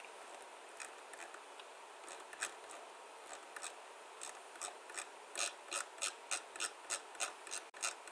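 Faint mechanical clicks, scattered at first and then a regular run of about three a second from about five seconds in.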